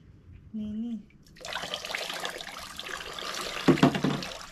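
Water poured from a jug over wet dreadlocks, running off the hair and splashing into a basin of rinse water; the splashing grows loudest near the end.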